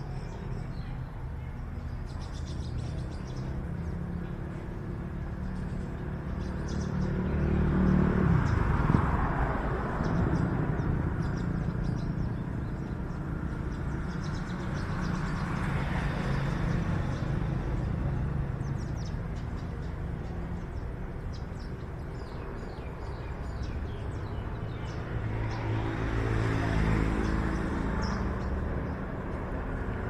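Road traffic: vehicles passing, the rumble swelling and fading about eight seconds in and again near the end, with faint bird chirps over it.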